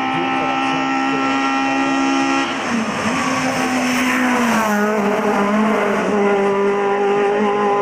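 Volkswagen Golf 16V hill-climb race car's four-cylinder engine running hard at high revs. The pitch drops about two and a half seconds in, sweeps as the car passes close about four seconds in, then holds steady again.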